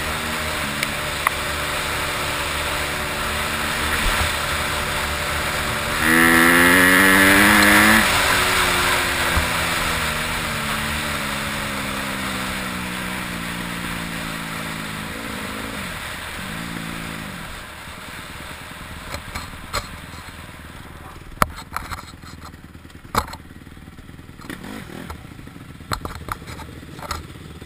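Honda CRF150R's four-stroke single-cylinder engine heard from on the bike: it revs hard and loud for about two seconds, then its pitch winds down steadily as the bike slows. After a short rev blip the engine settles low and quiet, with scattered clicks and knocks near the end.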